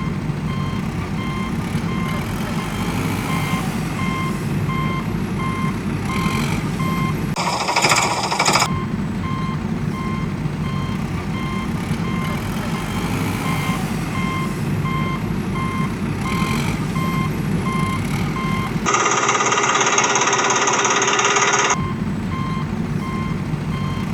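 A heavy vehicle's reversing alarm beeps in an even, repeating pattern over a steady engine rumble. There is a short louder burst of noise about 8 s in, and a louder rushing noise from about 19 to 22 s.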